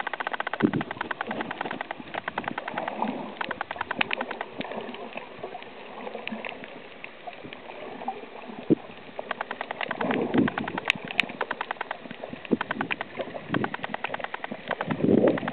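Underwater sound over a coral reef: a dense, continuous crackle of rapid clicks, with a few louder low gurgling swells about ten seconds in and near the end.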